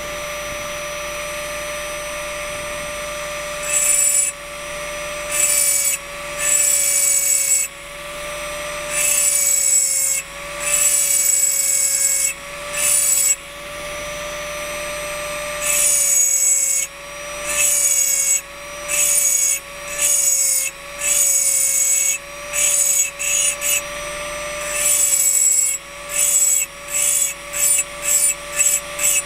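Engraving drill running steadily, its diamond burr grinding into a water-lubricated crystal vase in repeated high-pitched strokes. The strokes grow shorter and quicker near the end.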